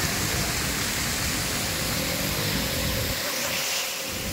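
Wind blowing on the microphone: a steady rushing noise with low buffeting that eases off about three seconds in.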